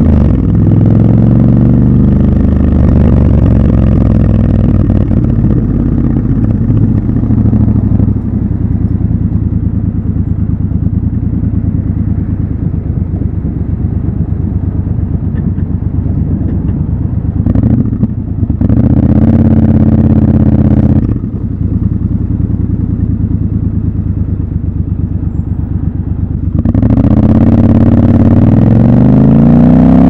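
Triumph Scrambler 1200 XC's parallel-twin engine, recorded raw from the bike. It revs briefly at the start, then idles with a steady low pulse for a long stretch, with a louder stretch midway. Near the end it accelerates away, the pitch climbing.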